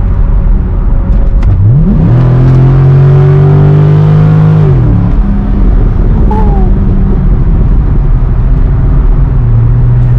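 C6 Corvette's V8 through a Borla Stinger cat-back exhaust with X-pipe, revving up sharply about one and a half seconds in, holding high for about three seconds, then dropping back to a steady cruising drone.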